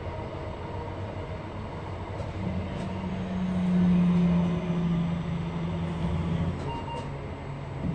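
Class 323 electric multiple unit running, with a steady rumble and a low hum that builds about a third of the way in, peaks in the middle and fades away near the end.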